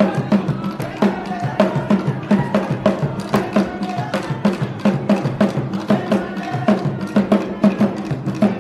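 Music with a brisk, even percussion rhythm of sharp strokes over a steady low pitched part.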